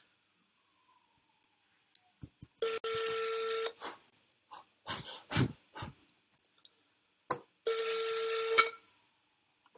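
Telephone ringback tone heard through a phone's speaker: two steady one-second tones about five seconds apart, the outgoing call ringing before it is answered. A few short clicks and knocks come between the two rings.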